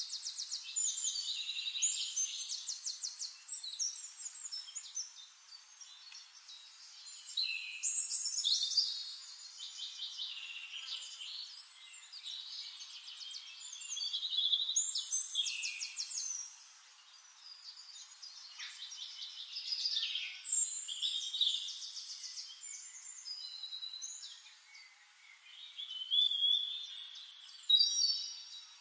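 Small songbirds singing: high chirps, fast trills and short gliding notes in phrases that rise and fade every few seconds.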